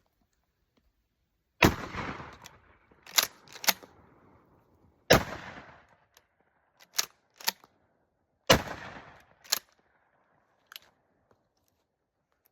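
Pump-action shotgun fired three times, about three and a half seconds apart, each report trailing off in a long echo. Between shots the slide is racked back and forward with paired sharp metallic clacks.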